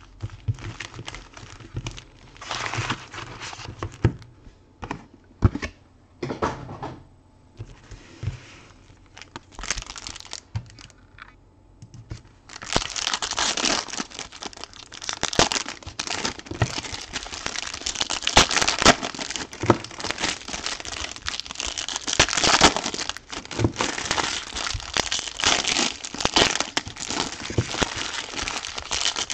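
Foil trading-card packs being handled and torn open, their wrappers crumpled by hand. Scattered short rustles at first, then steady, dense crinkling from partway through.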